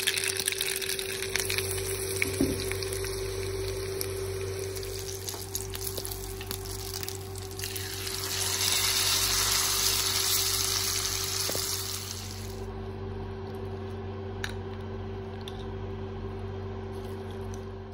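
Tempering of mustard seeds, dried red chillies and curry leaves frying in hot oil in a pan: a steady sizzle with occasional pops. About eight seconds in, a louder sizzle rises as the hot tempering is poured onto the avial, then dies down to a quieter steady hum.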